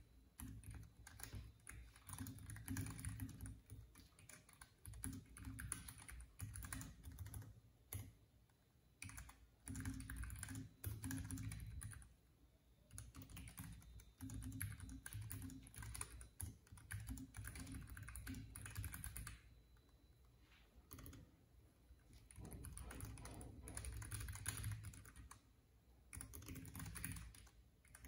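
Typing on a Keychron K3 V2 low-profile mechanical keyboard: quick runs of key clicks, broken by short pauses between phrases.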